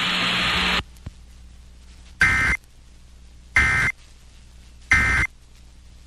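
Emergency Alert System end-of-message data bursts relayed over an FM radio stream: three identical short warbling beeps of SAME digital code, each about a third of a second long and just over a second apart. They follow a hiss that cuts off about a second in, and they mark the end of the severe thunderstorm warning broadcast.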